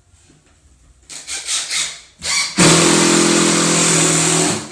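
Wet/dry shop vacuum: a few short noisy bursts, then the motor runs steadily with a pitched hum and a strong hiss for about two seconds before it cuts off near the end.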